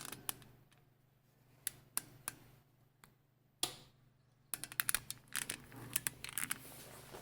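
Light, sharp clicks and taps: a few spaced apart at first, then a quick irregular clatter of them from about halfway through.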